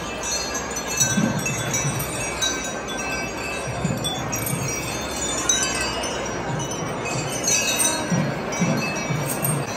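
Metal jingling and clinking from a temple elephant's iron chains as the mahout handles the chain at its foreleg: many short, high, bell-like rings scattered throughout.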